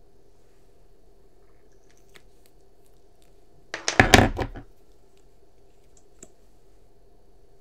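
A brief burst of handling noise, knocks and rustling lasting about a second, about four seconds in, over a faint steady hum.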